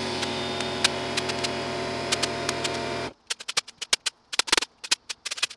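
Staple gun firing staples in quick succession, driving them through fabric into a wooden panel frame, a sharp click for each shot. For the first three seconds a steady machine hum runs underneath, starting and stopping abruptly.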